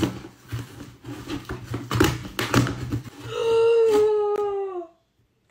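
A cardboard box and its packing being handled and opened, with crackling and sharp clicks for about three seconds. Then a woman's long 'ohh' of surprise, falling in pitch, before a sudden cut to silence.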